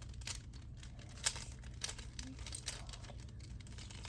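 Mirror cube being turned by hand during a solve: faint, irregular clicks of the layers turning and snapping into place, over a low steady hum.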